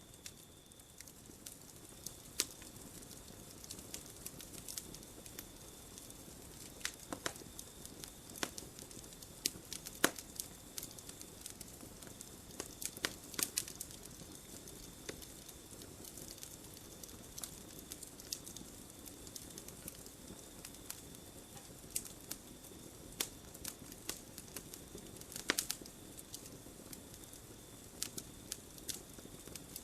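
Campfire crackling: irregular sharp pops and snaps of varying loudness over a low, steady hiss of burning wood.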